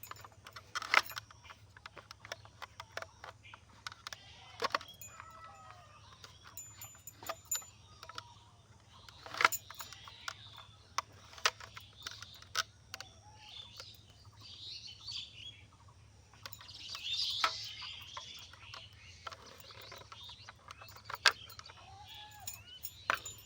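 Birds chirping in the background, with scattered light clicks and knocks every second or two.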